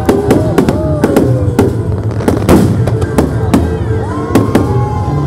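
Fireworks display barrage: a rapid string of shell bursts and bangs, several a second, with whistling glides rising and falling between them.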